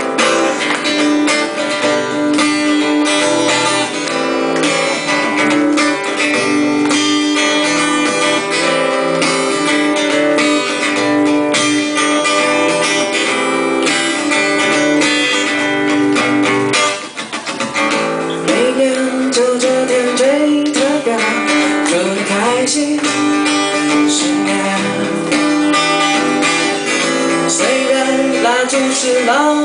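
Acoustic guitar strummed in steady chords, with a man's voice singing along over it from about two thirds of the way in.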